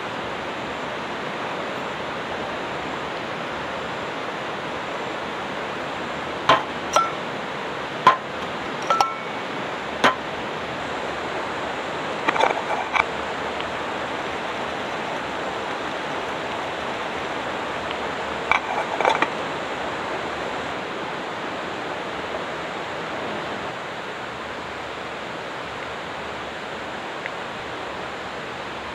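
Metal camp cookware clinking: about five single sharp clinks, then two short clattering runs, as a lid is handled on a pot of boiling water beside a stainless steel mug. A steady rushing noise runs underneath.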